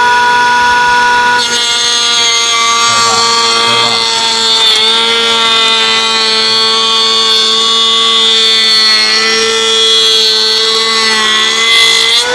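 Voto 21V cordless brushless wood planer running at full speed with a steady high whine. About a second and a half in, its blades start cutting into an oak board at a deeper depth setting, and a rough shaving noise joins the whine for the rest of the pass.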